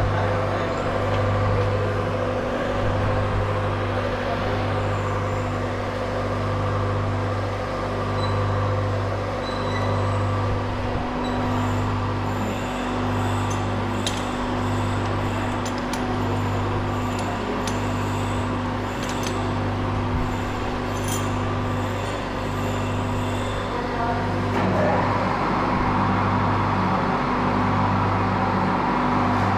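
Lathe running steadily, a low hum with a steady tone above it that pulses about once a second. Scattered light clicks come through the middle stretch.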